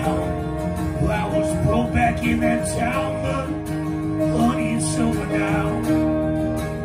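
Live acoustic country-folk music: a bowed fiddle playing long, sliding notes over a strummed acoustic guitar.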